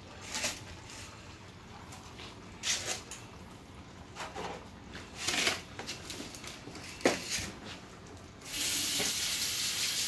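Breaded sweet potato grits cakes handled over a deep fryer: several brief swishes and scrapes, then a steady hiss of about two seconds near the end that cuts off.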